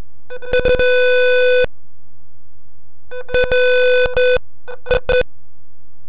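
Alarm buzzer of a simulated dishwasher control circuit sounding a harsh, buzzy electronic tone. It gives two tones about a second long each, then two short beeps near the end, over a steady low hum.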